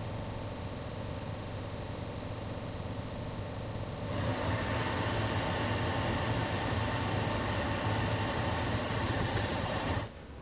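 Laser cutter running while cutting acrylic: a steady machine hum with a low drone and a faint high whine, growing louder and hissier about four seconds in, then cutting off suddenly near the end.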